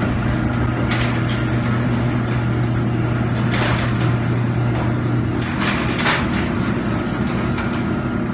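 Craftsman chain-drive garage door opener running, its motor and chain hauling the sectional door open with a steady hum and a few clacks along the way. The low hum changes about five seconds in.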